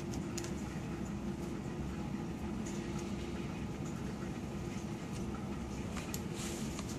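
A steady low mechanical hum, with a few faint, brief clicks as plastic tubing and a syringe are handled.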